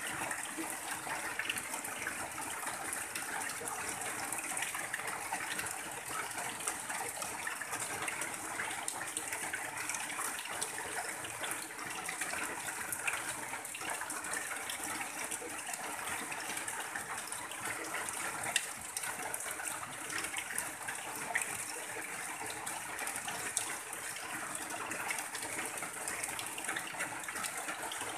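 Rain falling steadily on a tin roof, with runoff pouring off the roof edge in a stream. An even hiss, sprinkled with scattered ticks of drops.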